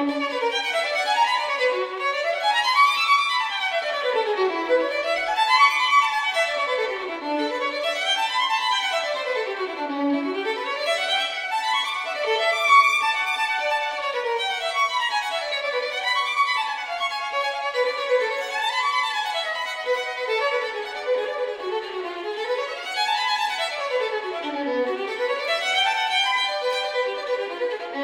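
Background music: a violin playing fast runs that sweep up and down in pitch, over and over.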